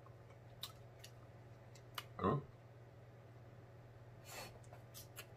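Faint eating sounds: a few light clicks of a metal fork against a king crab leg shell, a short mouth sound about two seconds in, and a brief sucking noise a little after four seconds as crab meat goes into the mouth.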